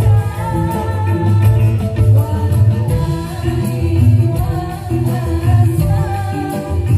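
A live band playing through a large PA sound system, with heavy bass, hand drums, guitars and keyboard, and a woman singing.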